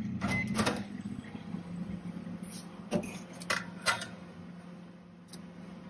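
Onida oven humming steadily while its glass door is opened and a metal baking tray is slid inside, with several clanks and scrapes of metal against metal. The hum fades out near the end.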